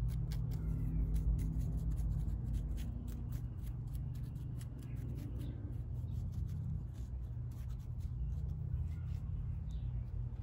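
A thin tool scratching and picking loose soil from a cedar seedling's root ball, with crackly scratches and crumbling soil, thick for the first several seconds and then sparser. A steady low rumble runs underneath.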